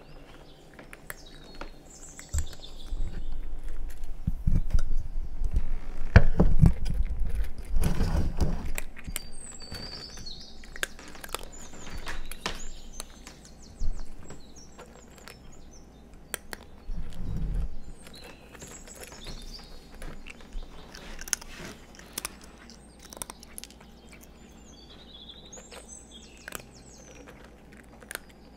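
Bengal cat crunching dry kibble from a stainless-steel bowl, a steady run of small crunches. From about 2 to 9 seconds in, and again briefly near 17 seconds, loud low rumbling and knocking from the microphone being moved. Birds chirp now and then throughout.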